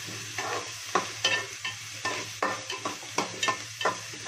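Sliced onions with ginger-garlic paste frying in oil, stirred in a large metal pot with a metal ladle: the ladle scrapes the pot about two or three times a second over a steady sizzle, as the onions are sautéed towards semi-brown.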